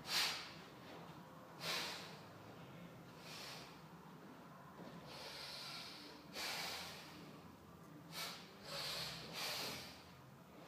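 A man breathing hard with exertion during bodyweight floor exercise: about eight sharp, hissing exhalations through the nose, a second or two apart. The first one is the loudest.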